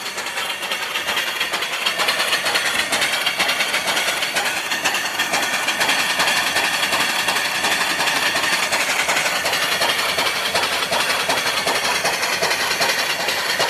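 Twin-cylinder reversing steam engine with a 3-inch bore and 3-inch stroke, running steadily with a rapid, even beat, growing a little louder over the first couple of seconds. Its small boiler is down to about 30 psi, so it is running low on steam.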